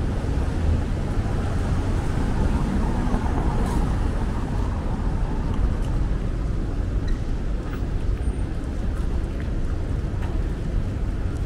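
Steady city traffic noise, a continuous rumble of cars and engines on a busy multi-lane street.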